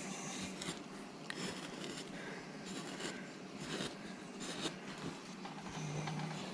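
Hand carving gouge paring wood in a series of short scraping strokes, about one a second, as chips are cut from a carving.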